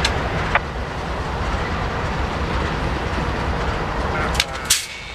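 GE C40-8M diesel locomotive running steadily, a low rumble with a hiss over it, broken by a few sharp clicks at the start and about four and a half seconds in.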